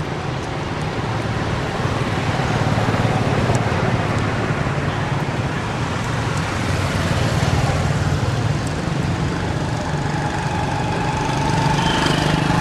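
Steady noise of road traffic: a motor vehicle engine running close by over a broad hiss, swelling a little and easing back, with a faint high tone near the end.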